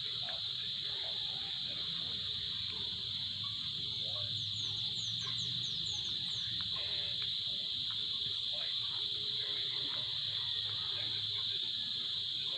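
A steady, high-pitched insect chorus, with a quick run of about eight short descending chirps near the middle.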